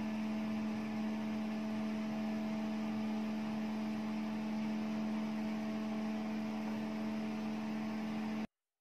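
A small electric motor of a model lifeboat running in water, giving a steady, even hum with a light hiss. It cuts off suddenly near the end.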